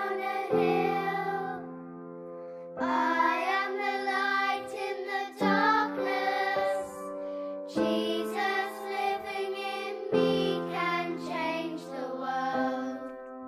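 A children's song: children singing over held instrumental chords, in phrases with short breaks.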